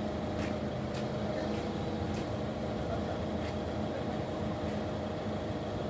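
Diesel Doosan forklift engine running steadily at idle, a constant low hum, with a few faint clicks over it.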